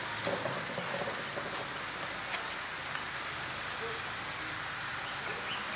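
Steady outdoor background hiss with a few faint, distant voices from onlookers near the start and near the end.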